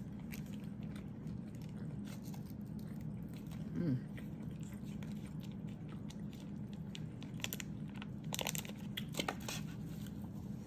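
Close-up chewing and biting of crispy fried Chinese takeout food, with scattered crunches that come thicker in the second half. A steady low hum runs underneath.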